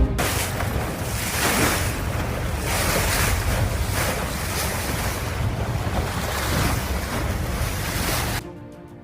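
Ocean surf: a steady rush of waves that swells and eases every second or two, with low wind rumble on the microphone. It cuts off abruptly near the end.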